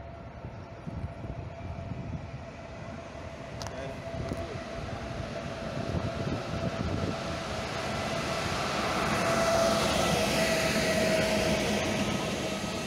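Electric-hauled RegioJet passenger train running through the station without stopping. It grows louder as it approaches, is loudest as the locomotive passes about ten seconds in, and then its coaches roll by on the rails. A steady whine runs through it all, and there is a brief click near four seconds.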